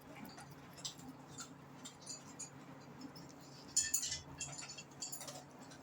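A cat chewing and licking watermelon: irregular small wet clicks and smacks, with the loudest cluster about four seconds in.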